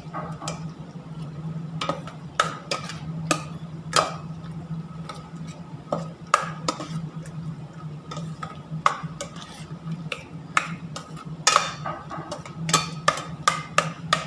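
Metal spoon stirring thick black bean paste and pork in a stainless steel stockpot, scraping and clinking irregularly against the pot's sides and bottom. A steady low hum runs underneath.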